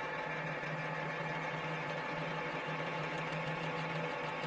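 Drilling machine motor running steadily with a steady hum, its spindle turning a combination drill-tap bit as it feeds into a metal bar.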